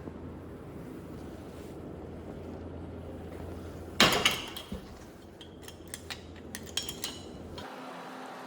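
Dishes and cutlery clattering: a sudden loud clash about four seconds in, followed by a few seconds of lighter clinks, over a steady low hum.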